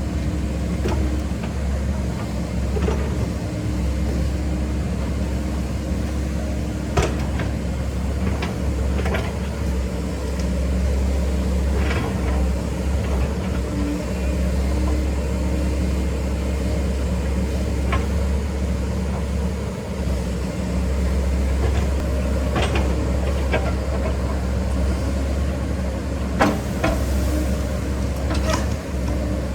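Volvo EC140 excavator's diesel engine running steadily under work, with a strong low hum. Short sharp knocks and cracks break through every few seconds.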